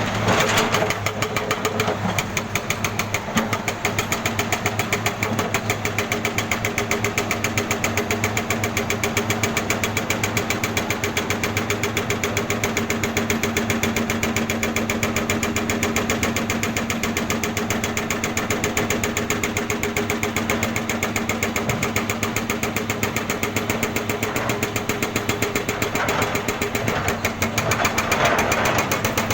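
Jackhammer hammering without a break in a rapid, even rhythm of sharp blows, with a steady engine hum underneath.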